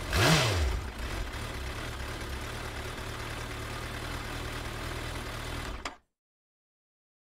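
Car engine revving once, its pitch rising and falling, then idling steadily. It cuts off suddenly about six seconds in.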